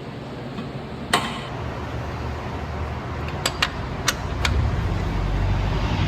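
Sharp metallic clinks of tools and parts while a new stabilizer (sway) bar bushing is fitted on the car's suspension: one clink about a second in, then four quick ones a little past the middle. A low steady hum gets louder in the last part.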